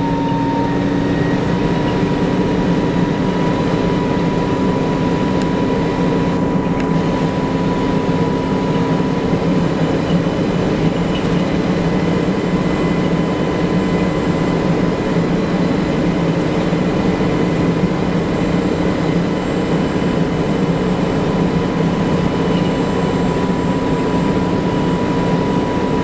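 1994 TMC RTS transit bus with a Detroit Diesel Series 50 engine and Allison VR-731 transmission, heard from inside the cabin while under way: a steady rumble with a constant whine over it. The transmission's lock-up is not engaging, which gives what the uploader calls a hybrid effect.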